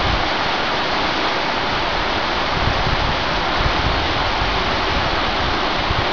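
River water rushing over rocks and rapids, a steady noise.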